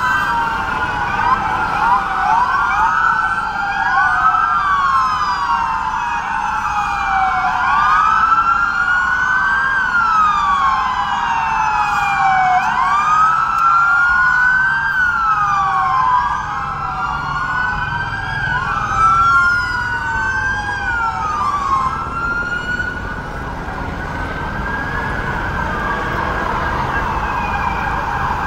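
Several emergency-vehicle sirens wailing at once, their overlapping tones rising and falling over and over. Near two-thirds of the way through they thin out and grow fainter.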